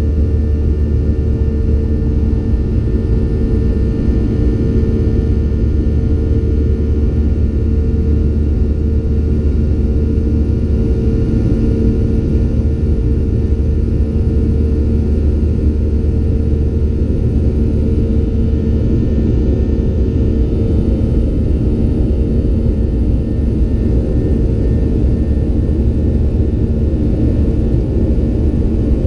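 Cabin noise of a Boeing 737-800 in flight: the CFM56-7B jet engines and the airflow make a steady, loud drone with a deep low rumble and a few constant humming tones.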